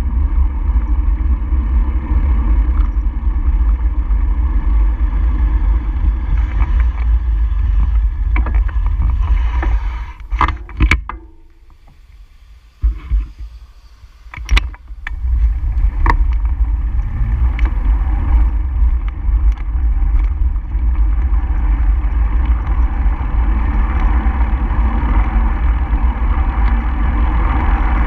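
Steady wind and road rumble from travelling along a road. The rumble drops away for a few seconds about ten seconds in, with a few sharp clicks, then comes back.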